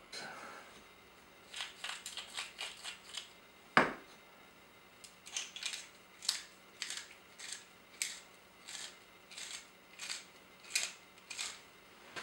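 Salt and pepper being applied over a bowl of cubed raw chicken. First a quick run of crisp rattling clicks, then one sharp knock about four seconds in, then a steady series of crisp rattling strokes, about one and a half a second.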